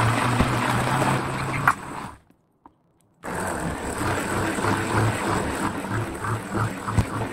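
Hand-held immersion blender running in a cup of coconut cream and banana, stopping for about a second partway through, then running again with a pulsing hum and cutting off sharply at the end.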